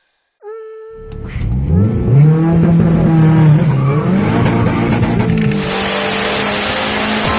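A short steady tone, then a car engine revving hard: the pitch climbs, dips and climbs again before settling, and a loud hiss joins about five and a half seconds in.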